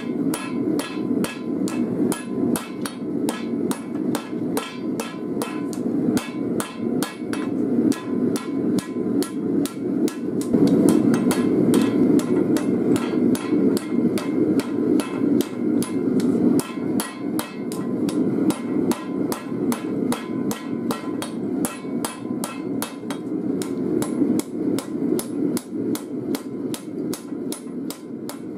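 Hand hammer striking red-hot file steel on an anvil, steady blows about three a second with a short metallic ring, drawing the file down thinner for a knife blade. A steady low rushing noise runs underneath.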